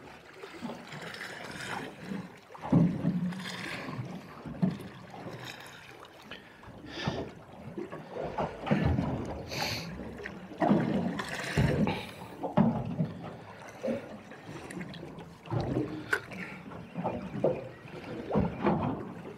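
Small boat drifting at sea, with water slapping and sloshing against the hull in irregular splashes and knocks.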